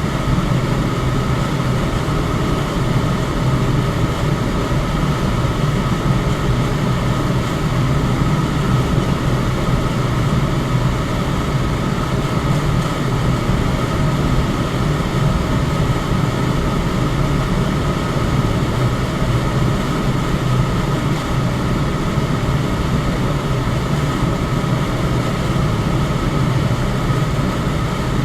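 Electric fan running at a steady speed: an even rush of air, heaviest in the low range, with a faint steady whine above it.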